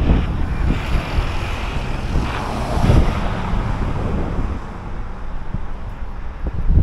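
Wind buffeting the microphone, with street traffic going by; one vehicle passes about two to three seconds in.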